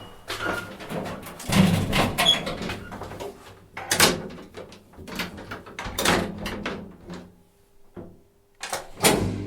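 Elevator car and doors: a series of sharp clunks and knocks every second or two over a faint low hum.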